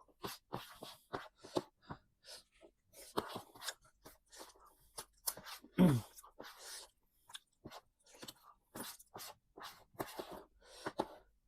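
A person eating close to the microphone: wet chewing and crunching with irregular mouth clicks and smacks. About six seconds in there is one louder short sound that drops in pitch.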